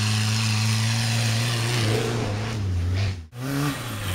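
Small tractor engine running steadily at high revs, then dropping in pitch about two seconds in. After a sudden cut near the end, a tractor engine runs again at a different pitch as it drives past.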